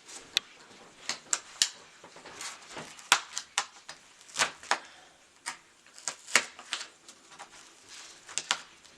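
Irregular sharp clicks and short crinkles from handling the packaging of a mandoline slicer.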